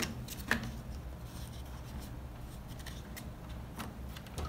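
A handful of light plastic clicks and handling rustles as a washing machine's water-level pressure switch is fitted into the control panel, over a low steady hum.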